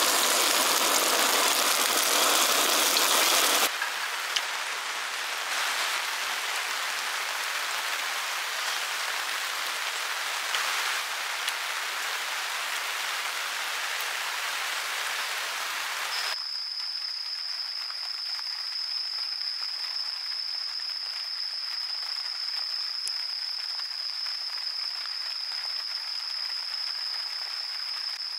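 A butane blowtorch burning with a loud, even rush, which stops suddenly about four seconds in. Then meat sizzling in oil on a griddle pan as a steady hiss, which gives way about sixteen seconds in to a quieter hiss with a steady high-pitched whine.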